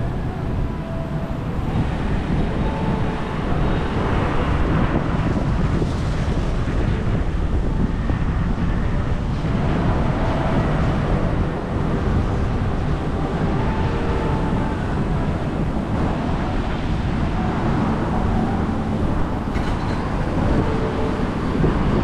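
Wind buffeting the microphone over a steady outdoor roar.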